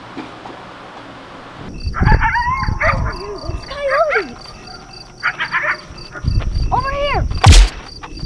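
A pack of coyotes howling and yipping, several wavering calls rising and falling, starting about two seconds in over an even ticking in the background. A loud sharp burst near the end.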